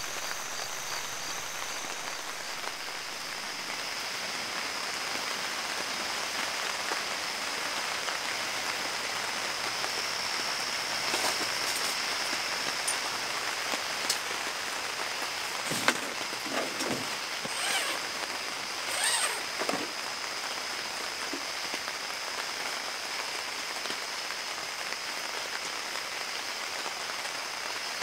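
Steady heavy rain falling on a tent's fabric and the ground around it, heard from inside the tent. A steady thin high tone sits underneath, and a few short, brief sounds come between about 11 and 20 seconds in.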